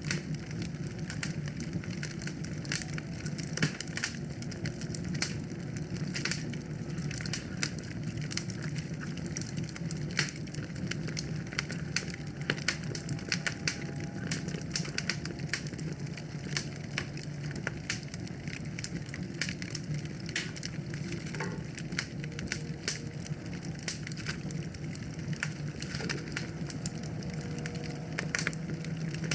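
Wood fire crackling in a fireplace: a dense, irregular stream of sharp pops and snaps over a steady low rumble.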